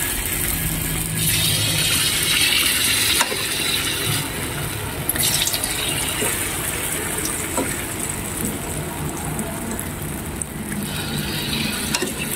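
Battered champadak pieces sizzling and bubbling as they deep-fry in hot oil in a wok, with a few short clicks.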